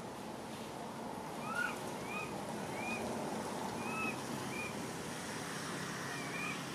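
About six short, high-pitched chirping calls, each rising and falling, spaced over several seconds above a steady hiss.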